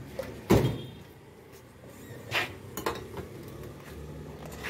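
A heavy thump about half a second in, then a few light metallic clicks and clinks over a faint low steady hum.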